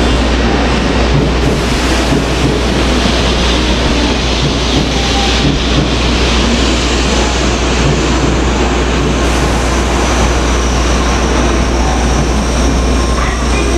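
Tokaido Shinkansen train moving along the station platform: a loud, steady rumble of wheels and rushing air over a low hum.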